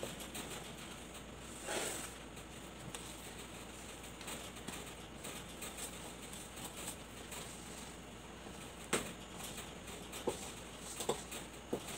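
Hands mixing and squeezing flour into a wet ube dough in a stainless steel bowl: soft, irregular rustling and squishing, with a few short clicks in the last few seconds.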